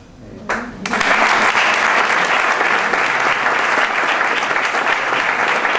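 Audience applauding, breaking out about a second in and going on steadily.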